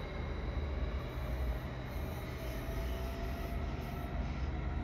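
Electric S-Bahn commuter train pulling out of the station and moving away: a steady low rumble with a faint whine that rises slowly as it gathers speed.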